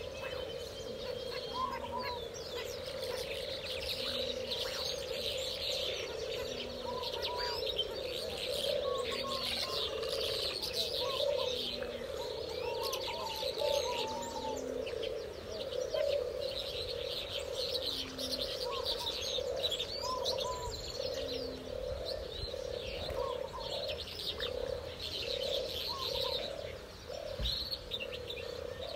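A mixed chorus of aviary birds: dense, high chirping over a steady mass of lower calls, with doves cooing in low notes that repeat about every second and a half.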